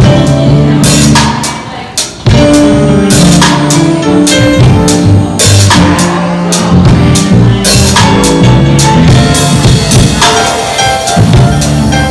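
Live jazz band jamming on a groove: drum kit with cymbal crashes, electric bass and keyboard. The band briefly drops out about two seconds in, then comes back in together.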